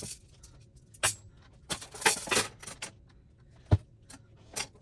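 Parts and packing of a flat-packed table being handled: a string of separate clicks and light knocks, with one louder, deeper knock a little before the end.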